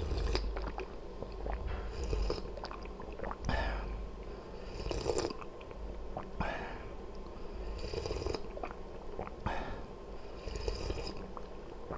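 Close-miked mouth sounds of a person eating: chewing and breathing, with a soft noisy sound about every second and a half.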